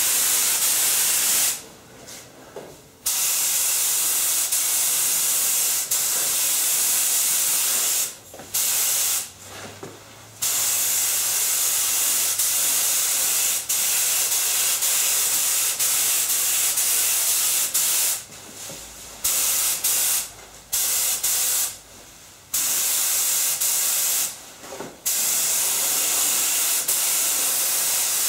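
Air-fed gravity-cup spray gun hissing as it sprays primer, in long passes broken by about seven short pauses where the trigger is let off.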